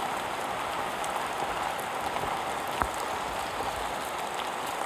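Steady rain falling, with scattered individual drops ticking and one sharper knock a little before the midpoint.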